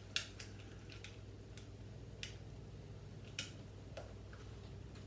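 Scattered light clicks of small Lego plastic pieces being handled and pressed into place, about half a dozen over a few seconds, over a faint steady hum.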